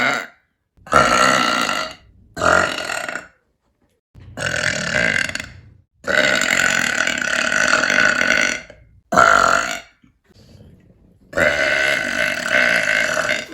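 A woman belching deliberately, about six burps in a row with short silent gaps between them, the longest drawn out for nearly three seconds.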